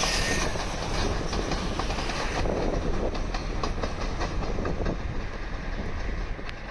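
V/Line VLocity diesel railcar set running over the junction trackwork, a steady rumble with many quick clacks as the wheels cross rail joints and points.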